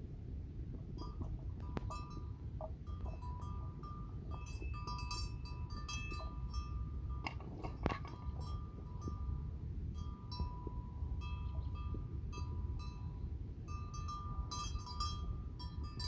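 Small bells tinkling on and off in short, irregular clinks and rings at a fixed pitch, over a steady low rumble.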